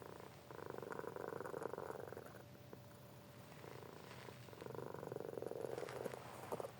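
Cat snoring with a fine, purr-like rattle: two long rattling breaths of about two seconds each, with quieter breaths between.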